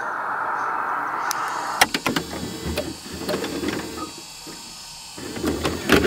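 A steady hiss gives way, about two seconds in, to crackling, clicking glitch sound effects like a distorted VHS tape, with uneven bursts of static and a loud flurry near the end.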